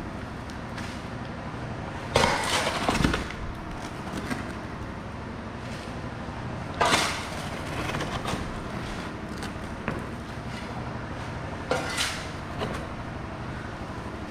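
A shovel digging into soil and broken concrete: three loud scrapes and scoops, about two, seven and twelve seconds in, with lighter knocks between them.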